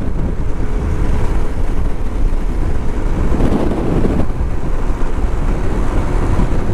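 Motorcycle running steadily while being ridden, under heavy wind rumble on the rider's microphone, with a brief louder swell about three and a half seconds in.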